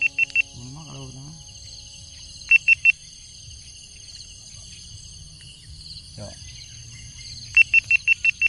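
Forest stream ambience: insects buzzing steadily and high, broken by quick series of sharp, high chirps (three near the start, three about two and a half seconds in, and six near the end).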